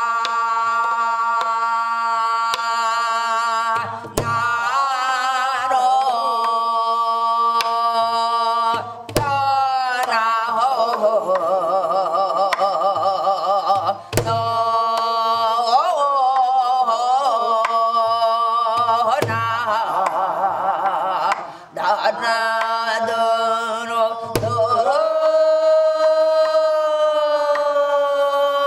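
Korean traditional wordless vocal music (gueum): a long, slow melody sung with wide vibrato over a steady sustained accompaniment. A low drum stroke comes about every five seconds.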